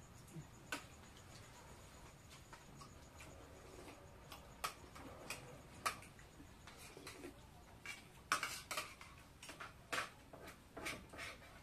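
Scattered light clinks and taps of spoons and hands against plates as people eat, irregular, with a cluster of louder clinks about eight seconds in.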